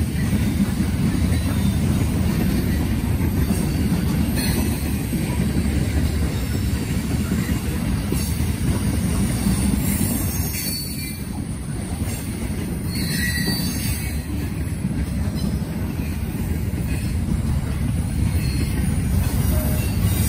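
Norfolk Southern freight train rolling past at close range: a steady low rumble of wheels on rail, with a few brief faint wheel squeals about halfway through.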